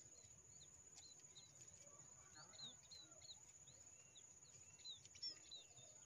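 Munias giving short, high chirps, many in quick succession. A steady high-pitched whine runs underneath.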